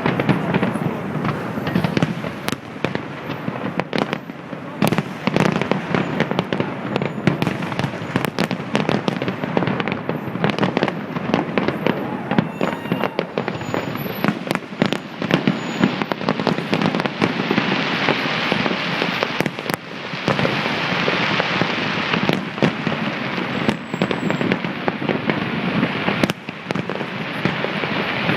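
City fireworks display: a rapid, unbroken series of bangs and booms from the shells bursting. A denser hissing crackle builds up about two-thirds of the way through.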